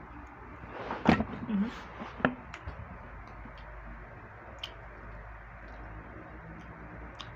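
Cooked crab being pulled apart by hand, its shell giving a few scattered small cracks and clicks, with a short vocal sound about a second in over a steady low hum.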